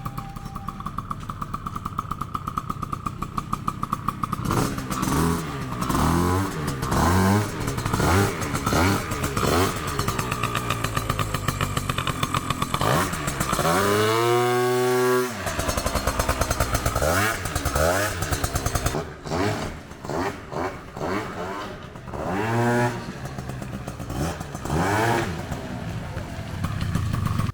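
An engine revved again and again, its pitch climbing and dropping with each rev, with the highest and longest rev about halfway through.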